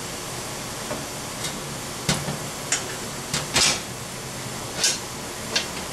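Thin steel panels of a flat-pack portable fire-pit grill knocking and scraping as they are fitted into their wider-setting slots: several short clanks, the loudest just past the middle.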